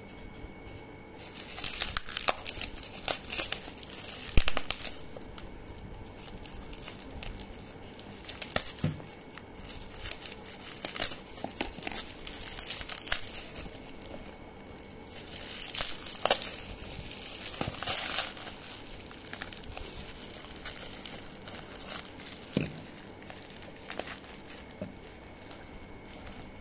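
Plastic bubble wrap crinkling and crackling as it is pulled off plastic pump bottles, in stretches of rustling broken by sharp crackles. The first loud stretch starts about a second in and another comes past the middle, with scattered crackles between.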